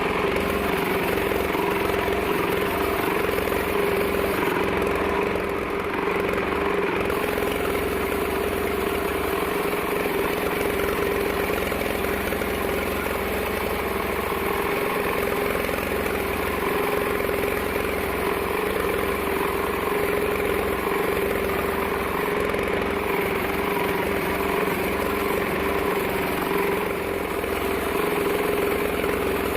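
Sawmill bandsaw machinery running steadily, a constant engine-like hum with one strong held tone and no change in pace.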